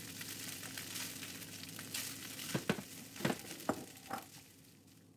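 Cooked rice sizzling faintly in hot oil in a non-stick pan as it is stirred with a silicone spatula, with about six short scrapes and knocks of the spatula in the middle; the sizzle dies away near the end.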